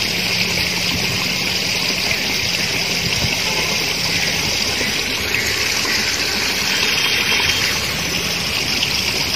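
Steady rush of flowing water, an even hiss with no break.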